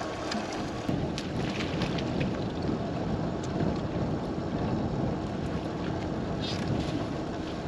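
Steady wind rushing across the microphone on open water, with small waves lapping against the boat and a few faint knocks.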